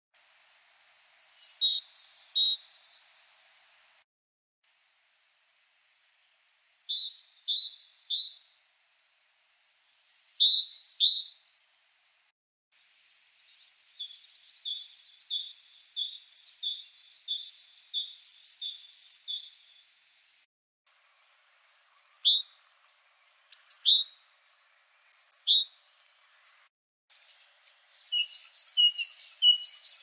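Great tits singing: several separate song bouts, each a quick repetition of a short phrase of two or three high-pitched notes alternating high and low, with silent gaps between bouts. The first bouts are typical great tit song, and later ones are less common variants.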